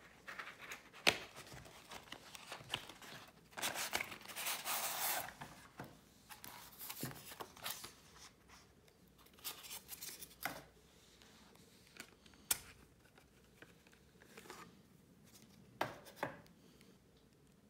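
Unpacking noise: a cardboard box and a polystyrene foam insert rubbing and scraping as a pocket calculator is lifted out, with a longer rustling stretch about four seconds in. Scattered sharp plastic clicks as the calculator in its hard case is handled, the last ones near the end.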